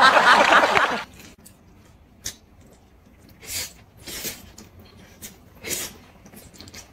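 Buckwheat noodles slurped off chopsticks: four or so short, wet sucking slurps, spread a second or more apart.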